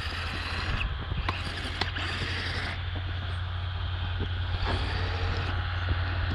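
Footsteps crunching through snow, sharp crunches about two a second, over a steady low rumble.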